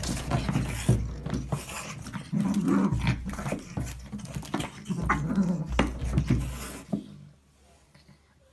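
A dog growling, with scattered sharp knocks and bumps; it stops about seven seconds in.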